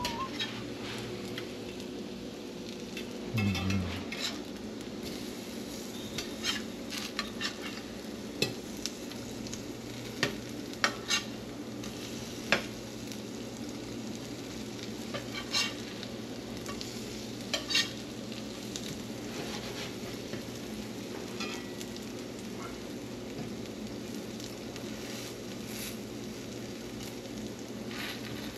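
Food sizzling in a frying pan on an electric cooktop, with scattered clicks of a utensil stirring against the pan. A short low thud comes about three seconds in.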